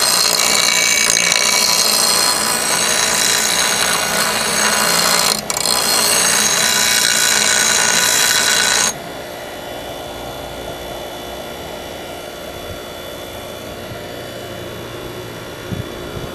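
Steel lawn mower blade ground against the wheel of a 6-inch bench grinder: a loud, harsh grinding with a brief break about five seconds in, flattening the battered end of the blade to even out the metal. The grinding stops abruptly about nine seconds in, leaving the grinder running with a quieter steady hum.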